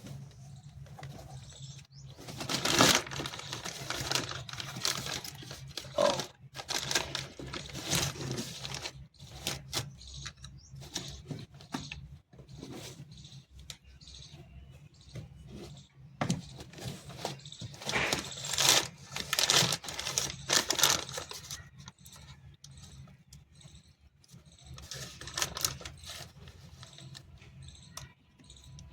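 Hand tools and metal parts clinking, rattling and scraping in bursts as a washing machine's motor is unbolted and taken out, over a steady low hum.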